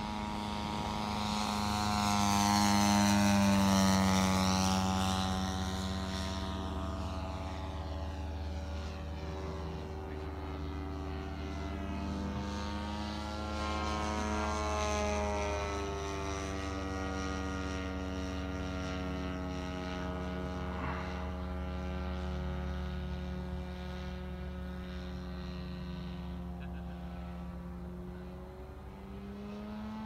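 Engine of a radio-controlled Seagull Ju 87 Stuka model running in flight, its pitch rising and falling as the plane passes overhead. It is loudest a few seconds in, as the plane flies close, and revs up near the end.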